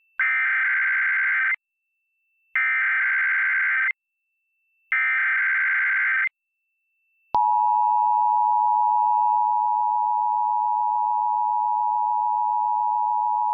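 Emergency Alert System test broadcast: three SAME header bursts of digital data tones, each a harsh electronic screech about a second and a half long, with about a second of silence between them. After the third burst the EAS two-tone attention signal (853 and 960 Hz together) starts and holds steady.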